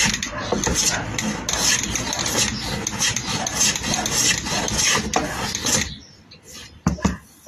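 A woodworking hand plane shaving wood: its blade's edge is being tested. It makes a rasping cut in repeated strokes that stop about six seconds in, followed by a single sharp knock near the end.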